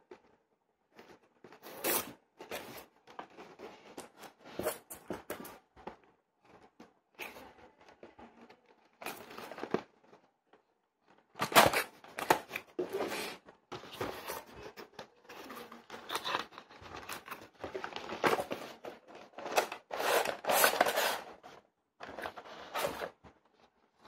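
Cardboard retail box being opened by hand: flaps pulled open and packaging rustling, scraping and tearing in irregular bursts, loudest about halfway through and again near the end.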